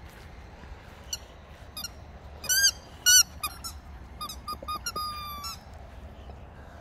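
A boxer dog chewing a squeaky rubber toy, setting off a quick string of short, high squeaks from about a second in. The loudest two come near the middle, and it ends in one longer drawn-out squeak.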